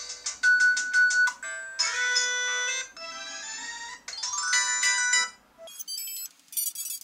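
Polyphonic ringtone melodies played from the Samsung Anycall SPH-W8400 slide phone's speaker, previewed one after another, each cut short after a second or so as the next tune starts. Near the end a higher, tinklier tune comes on.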